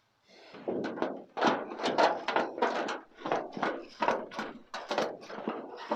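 Sheet tin from a collapsed pool being cut by hand: a rhythmic run of short, noisy cutting strokes, about three a second.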